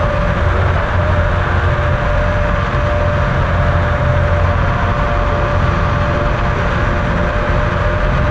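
Dualtron Thunder electric scooter riding steadily on asphalt: a continuous low rumble of tyre and road noise with a steady, even-pitched whine from its hub motor.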